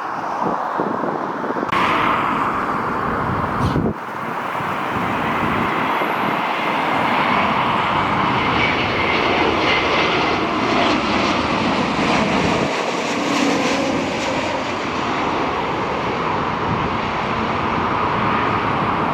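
Airliner jet engines running: a steady, dense rushing noise that dips briefly about four seconds in, then builds and holds.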